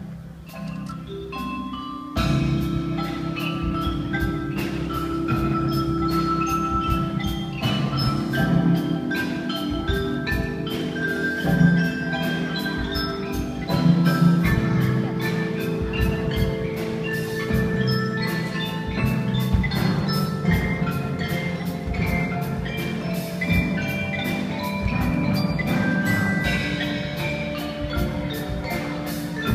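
Youth percussion ensemble playing on marimbas and other mallet instruments over a rhythmic beat, with the full group coming in louder about two seconds in.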